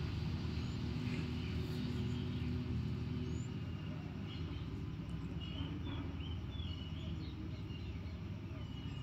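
SGG industrial sewing machine running steadily as it sews long basting stitches, its hum dropping off about three and a half seconds in. Birds chirp in the background in the second half.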